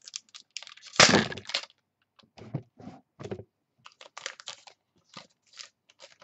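A foil trading-card pack torn open and crinkled by hand: one loud rip about a second in, then scattered short crinkles and rustles of the wrapper.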